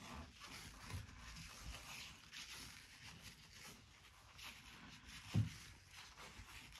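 Faint rustling and soft hiss of pre-wrap foam being unrolled and wound around an ankle by hand, with a soft thump about five seconds in.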